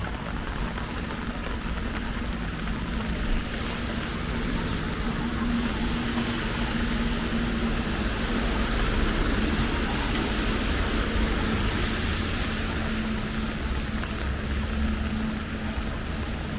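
Steady rain falling, a hiss that swells in the middle and eases near the end, over a faint constant low hum.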